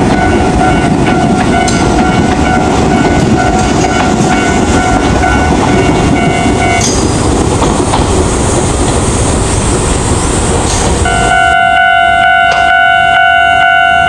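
Izukyu 8000-series electric train passing over a level crossing, its wheels and running gear rumbling, while the crossing's electronic warning bell rings steadily. The bell stops about halfway through as the train clears, and the train noise fades off. Near the end a crossing warning bell starts ringing again.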